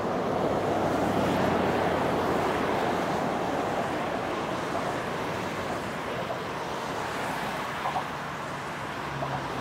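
Road traffic and a REM light-metro train passing alongside on the bridge: a steady rush of tyre and wheel noise, loudest a second or two in, then easing as the train draws away.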